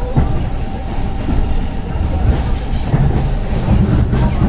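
Passenger train running along the track, heard from inside a carriage: a steady low rumble of the wheels on the rails with a few scattered knocks.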